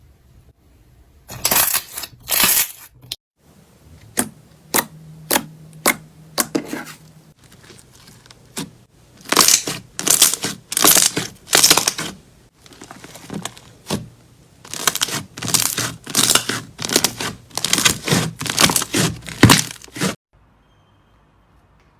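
Slime being squeezed and pressed by hand, giving repeated bursts of crackling and crunching that come thick and fast in stretches and stop abruptly about twenty seconds in.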